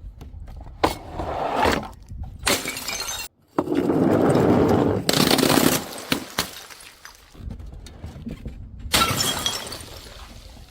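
Glass bottles smashing: several separate breaks, with a longer stretch of shattering glass in the middle.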